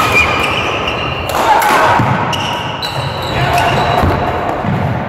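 Busy badminton hall: rackets striking a shuttlecock in a doubles rally, with sharp knocks and footwork on the court floor, over voices from around the hall.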